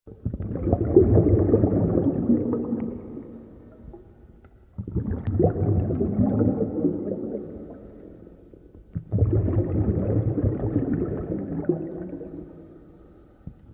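Underwater water noise: a low, gurgling rumble that comes in three surges, each starting suddenly and fading away over a few seconds.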